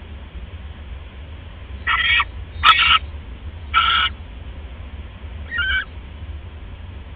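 Barn owl giving four short, harsh, noisy calls spread over about four seconds. A sharp click comes at the start of the second call.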